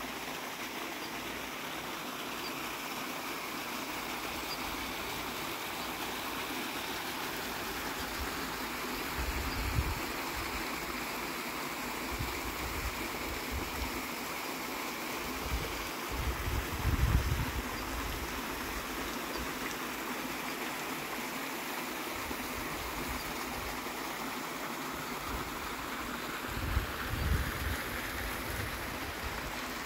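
Steady rush of running water from a small waterfall pouring into a rock pool. A few brief low thumps stand out above it about a third of the way in, just past halfway, and near the end.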